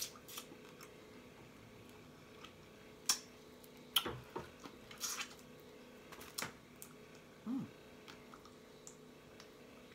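Close-up eating sounds of blue crab: a few sharp wet smacks and clicks, spaced a second or so apart, from chewing and picking at the crab.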